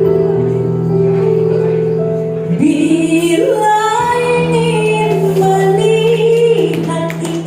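Women's choir singing with instrumental accompaniment: a held chord for the first two and a half seconds, then the female voices come in on a melody with vibrato over the sustained accompaniment.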